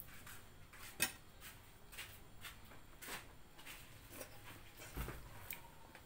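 Quiet mealtime table sounds: scattered light clicks and taps of a fork and spoon against plates, the sharpest about a second in, with a soft thump about five seconds in.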